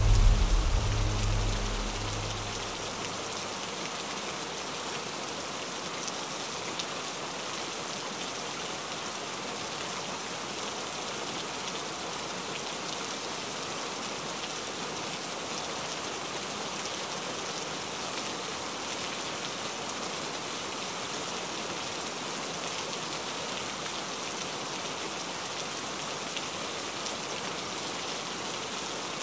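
Steady rain falling on window glass, an even, unbroken wash of drops. In the first two seconds the low notes of a music track fade out beneath it.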